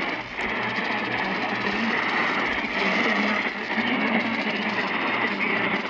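Noisy radio receiver audio: a steady hiss of static with a faint voice barely showing through it.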